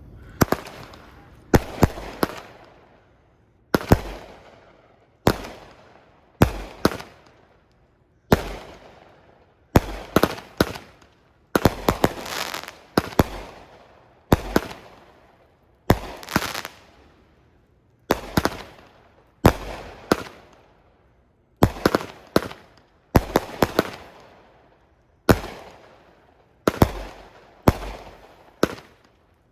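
Fireworks going off in a steady series of loud bangs, roughly one a second and often in quick pairs, each bang trailing off as it fades.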